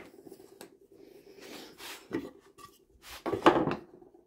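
A plastic vise rack stop with wooden ends being slid and scraped against a wooden vise chop as it is set in place, with a click a little after two seconds and a louder burst of scraping and knocking about three seconds in.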